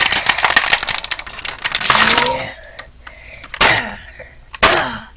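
Stiff plastic toy packaging crackling and clicking as an action figure is pulled out of its moulded tray, dense at first and then a few separate sharp clicks.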